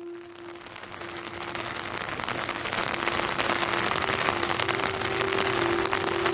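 Rain falling, a dense patter of drops that fades in over the first few seconds and then holds steady, with a single held musical tone sounding under it.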